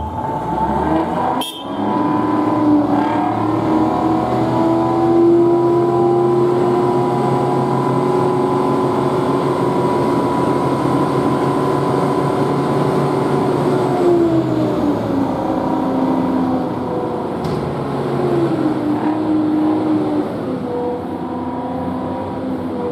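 Type 94 amphibious mine-laying vehicle's engine and hydraulics running under load with a steady whine as its float panels fold up for land mode. A sharp clunk about a second and a half in; the whine drops in pitch about two-thirds of the way through and shifts again near the end.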